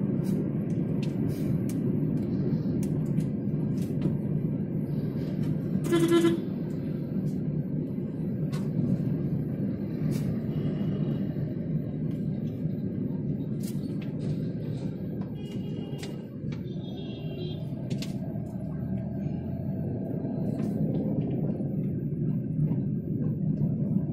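Steady road and engine rumble heard inside a moving car's cabin, with a short, loud horn honk about six seconds in and fainter, higher horn toots from other traffic later on.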